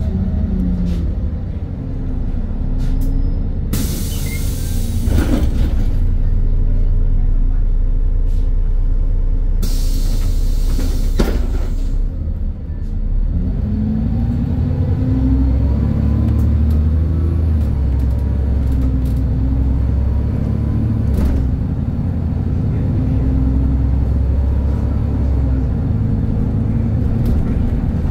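Cabin noise of a Volgabus-6271.G2 city bus on the move, its Yuchai YC6L280N natural-gas engine and Voith DIWA automatic gearbox giving a steady low rumble with a whine that rises and falls as the bus pulls away and changes speed. Two loud bursts of compressed-air hiss from the bus's air brake system come about four seconds in and again about ten seconds in.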